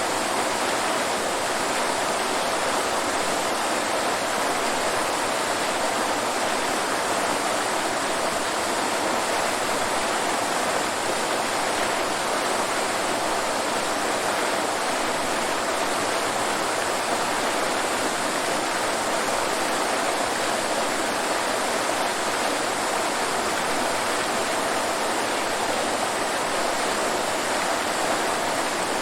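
Waterfall: falling water rushing steadily, an even, unbroken noise.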